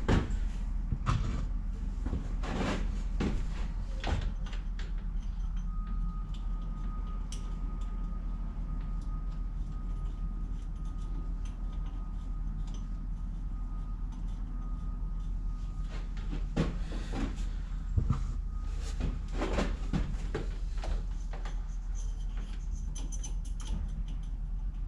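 Metal parts and hand tools knocking and clinking in short clusters as a lathe carriage is reassembled, over a steady low hum.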